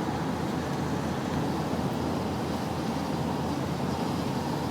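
Steady rumble of a van heard from inside its cabin, with no distinct events.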